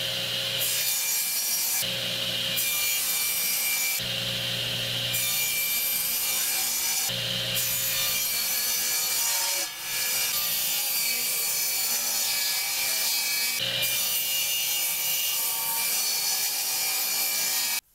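Table saw fitted with a stack dado set, running and cutting grooves in plywood drawer parts as they are fed along the fence. The sound runs continuously and changes tone several times as boards go through, then cuts off suddenly at the end.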